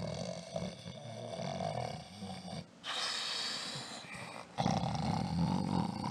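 A man's exaggerated, play-acted snoring: a long rough snore, a breathy blow out about three seconds in, then another snore starting about a second and a half later.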